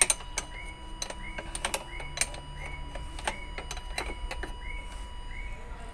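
Open-end wrench clinking on the injector fuel-line nuts of an Isuzu 10PE1 diesel as they are loosened to bleed air from the lines: a few sharp, irregular metal clicks. Behind them runs a faint, even ticking about twice a second.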